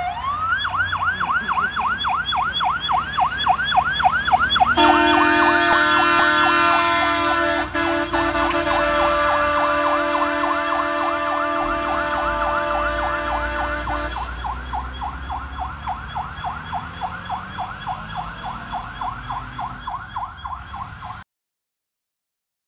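Fire engine's electronic siren sweeping rapidly up and down, about three sweeps a second, loudest as the truck passes. From about five seconds in a long steady horn sounds over it for about nine seconds, then the siren fades as the truck drives away and cuts off abruptly a second or so before the end.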